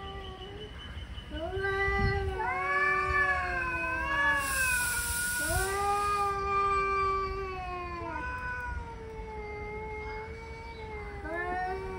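Two male cats yowling at each other in an angry standoff: long, wavering caterwauls that rise and fall in pitch, the two voices overlapping. There is a short hiss about four seconds in.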